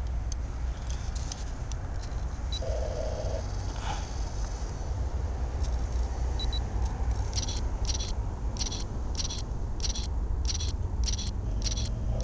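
Freight train rolling past: a steady low rumble, with a regular clicking of wheels over rail joints about every 0.6 s from about halfway on.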